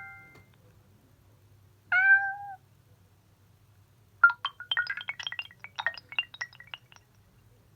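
Nokia Lumia 520 message tones: a short recorded cat meow, then about four seconds in a quick run of high tinkling plinks lasting about three seconds.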